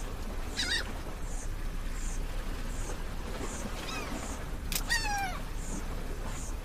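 Birds calling over a steady hiss of coastal ambience: a few short cries that slide down in pitch, the clearest about five seconds in. A faint high chirp repeats about once every 0.7 seconds.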